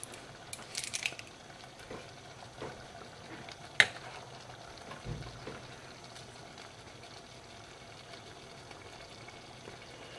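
Pot of ramen noodles in tomato sauce simmering, with a few scrapes of a wooden spoon in the stainless steel pot in the first second or so. A single sharp click about four seconds in is the loudest sound.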